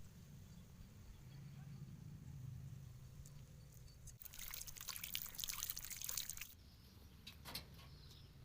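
Water splashing and trickling as peeled cassava is washed by hand, for about two seconds in the middle; before and after it only a faint low hum.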